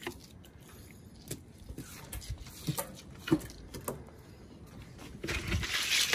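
Fillet knife cutting and scraping crappie on a plastic cutting board, a run of small clicks, knocks and scrapes. Near the end comes about a second of louder rustling, rushing noise.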